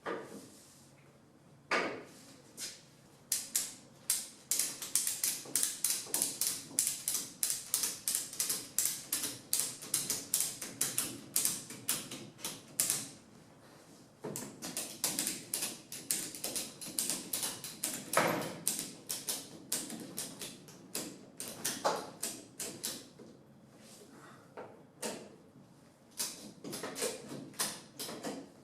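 Long runs of sharp clicks, about two to three a second, broken by a few short pauses, with a handful of louder single knocks.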